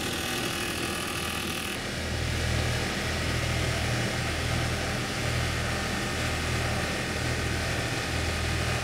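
Bar polishing machine running as a steel barbell shaft is fed through its rollers for the final polish: a steady low machine hum that grows stronger about two seconds in.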